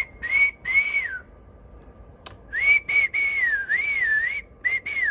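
A person whistling into a small electret microphone: breathy phrases on one high pitch, with a gap of over a second after the first, and the longest phrase wavering up and down.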